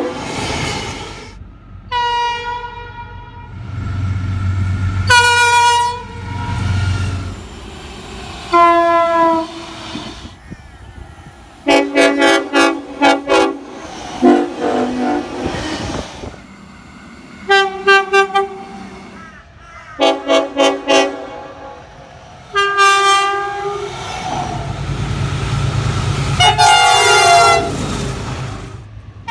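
Locomotive air horns sounding again and again, in chords of several steady tones: long blasts, and runs of quick short toots about halfway through. A low train rumble runs under some of the blasts.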